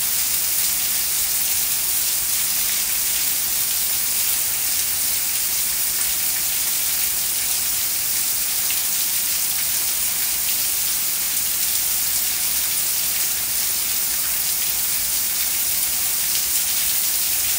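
Heavy rain pouring down on a concrete driveway, lawn and leafy trees: a steady, even hiss.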